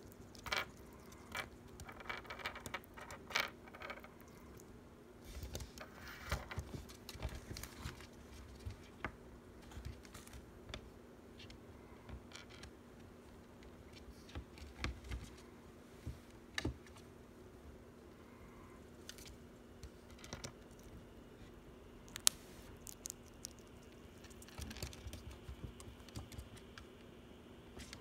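Faint, irregular small clicks and crackles of a pet sugar glider eating treats, busiest in the first few seconds and again near the end, over a steady low hum.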